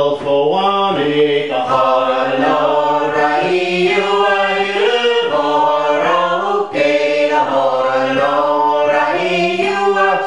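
A small group of men and women singing a Scottish Gaelic song together, unaccompanied.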